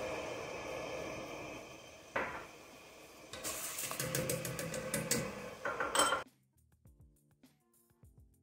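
Rice grains pouring from a bowl into a water-filled enamelled cast-iron pot, then a quick run of taps as a metal mesh strainer is knocked against the pot. The sounds cut off suddenly about six seconds in, leaving faint background music.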